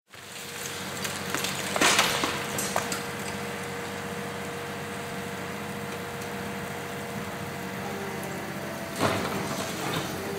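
Demolition excavator's diesel engine and hydraulics running steadily with a thin whine, while its Atlas Copco CC 1700 concrete crusher breaks up a reinforced concrete building: sharp cracks and crashes of concrete about two seconds in and again near the end.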